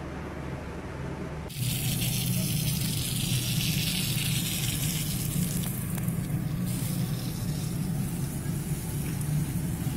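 Garden hose spraying water in a steady hissing fan over grass and plants, starting abruptly about a second and a half in, over a steady low hum.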